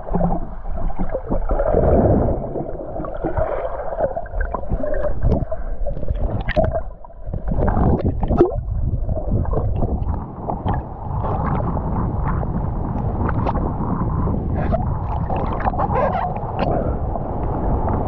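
Sea water gurgling and sloshing around a camera moving underwater and then at the surface of choppy sea, with scattered clicks and small splashes.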